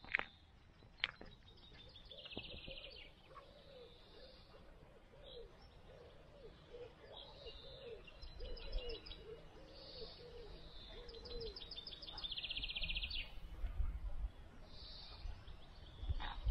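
Songbirds singing, with fast high trills that come back every few seconds over a run of low, evenly repeated notes. A low rumble of wind on the microphone comes in during the second half.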